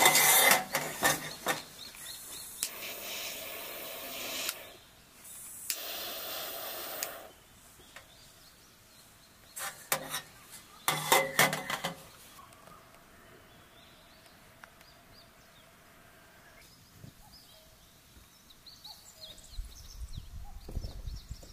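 Long-nosed gas lighter hissing as its flame burns, twice for about two seconds each, lighting a mosquito coil. Clicks and clinks of the metal coil holder being handled come before and after. Then a quiet outdoor background with faint high chirps near the end.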